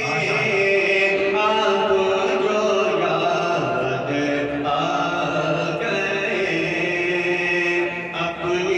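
A man singing an Urdu naat (devotional kalaam) solo into a microphone. He holds long, drawn-out notes that step up and down in pitch, with a brief break near the end.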